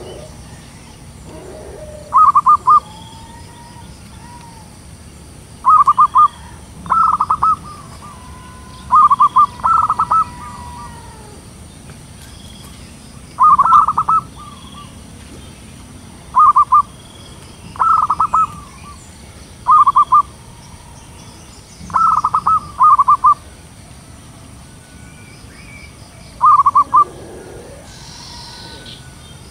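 Zebra dove singing: about a dozen short phrases of rapid staccato coos, each lasting under a second, repeated every two to three seconds.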